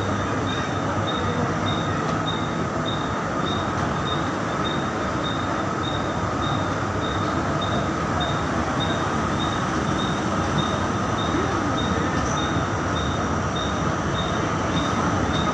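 Indian Railways passenger coaches rolling past along the platform: a steady noise of wheels running over the rails, with a short high chirp repeating about twice a second.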